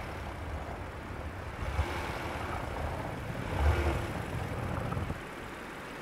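Honda Ridgeline pickup's V6 engine running as the truck creeps forward through deep snow, a steady low rumble that swells briefly about halfway through.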